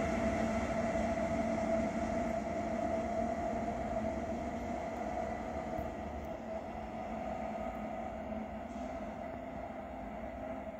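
A train running on the track, a steady rumble with a held whine on top, slowly fading away.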